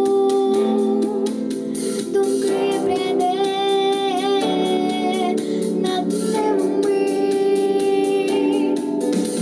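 A young female voice singing a Ukrainian song over instrumental backing with a steady beat, holding long notes with vibrato.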